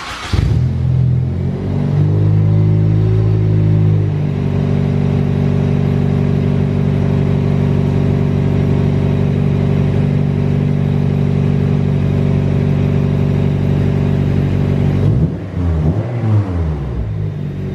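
Honda Civic Type R EP3's 2.0-litre four-cylinder engine starts and runs at a fast idle for about four seconds, then settles to a steady idle through a Skunk2 Megapower R exhaust. The pitch briefly falls and rises again near the end. The exhaust joint at the cat is only partly bolted, a temporary fix that the owner expects to leak.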